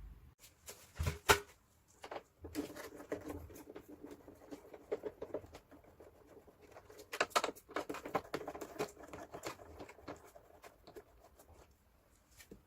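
Plastic parts of a Daikin fan coil air-conditioner unit being unhooked and handled: two sharp clicks about a second in, then a long stretch of scraping, rattling and small clicks.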